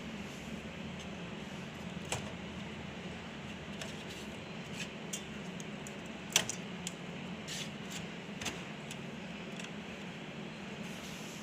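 Steady machine hum with scattered light clicks as server hardware is handled during a RAM installation, with one sharp click about six seconds in and a smaller one about two seconds in.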